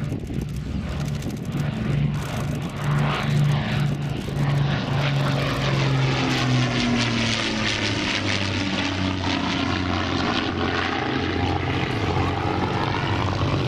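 De Havilland Mosquito's twin Rolls-Royce Merlin V12 engines and propellers on a low flypast. The engine note drops in pitch as the aircraft passes overhead, about six to eight seconds in, then carries on as it flies away.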